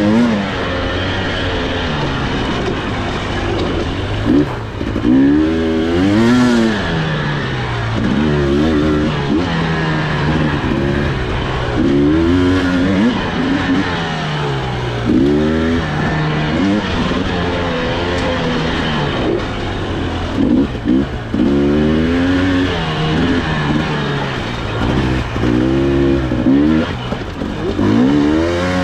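Husqvarna TE300i two-stroke single-cylinder dirt bike engine being ridden, its revs rising and falling again every couple of seconds as the throttle is worked.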